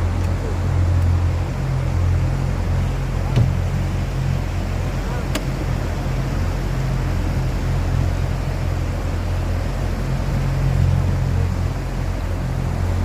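Boat's outboard motor running steadily with a low hum, a couple of sharp clicks a few seconds in.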